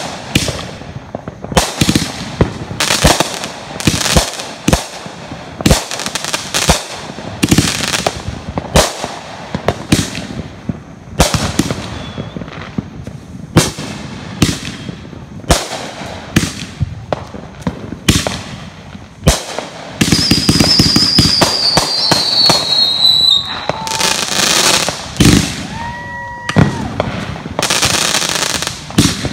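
Winda 'Zero To Hero' 44-shot multi-effect firework cake firing: a long series of sharp shots and aerial bursts, about one or two a second. About two-thirds of the way through the shots come thick and fast into a dense stretch of bursts and crackle, with a high tone sliding downward in pitch.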